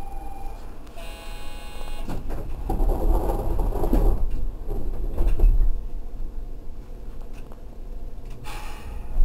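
A short electronic signal tone about a second in, then the sliding doors of a 100A series New Tram rubber-tyred automated guideway train closing with low rumbling knocks as the train departs the station.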